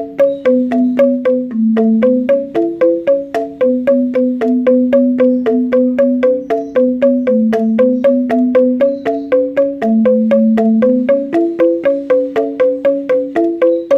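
Background music: a melody of quick struck notes on a mallet instrument, about four notes a second, over a slower, lower line of held notes.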